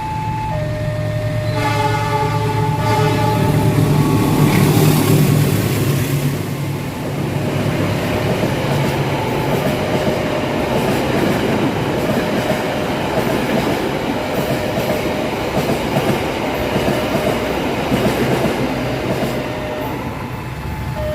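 A passenger train sounds its horn for about two seconds, then runs past at speed with a steady rumble and clatter of wheels on the rails, loudest just after the horn. Under it, the level crossing's warning alarm keeps alternating between two tones.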